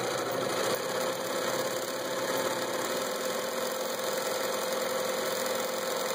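Bernina Record 830 electric sewing machine running at high speed, sewing one of its built-in decorative stitch patterns through fabric. A steady motor hum comes with fast, even needle clatter.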